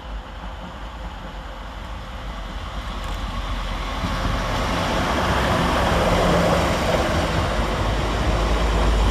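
Class 185 diesel multiple unit approaching, its rumble growing steadily louder, with a faint engine hum coming through in the second half.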